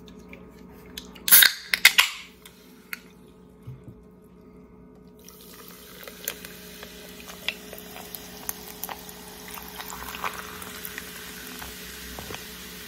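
A can of carbonated energy drink cracks open with a sharp snap and hiss about a second and a half in. From about five seconds in, the drink is poured into a frosted glass mug, splashing and fizzing steadily as it foams.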